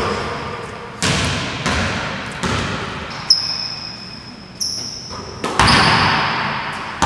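A basketball bouncing on a hardwood gym floor, several sharp thuds about a second apart, each echoing and fading in the large hall. There are a couple of short high sneaker squeaks in the middle.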